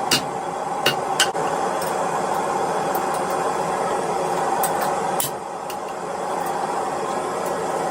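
A blacksmith's hammer striking hot iron on an anvil three times in the first second or so, then a few lighter taps. A steady whooshing hum runs underneath and drops in level about five seconds in.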